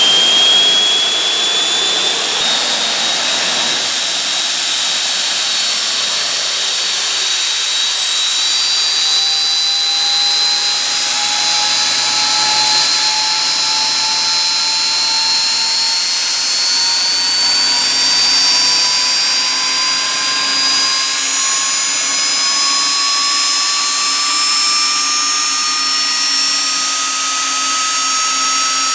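Rolls-Royce Marine Spey gas turbine running loudly: a dense rush of air with several high whines that climb slowly and steadily in pitch as the engine speeds up.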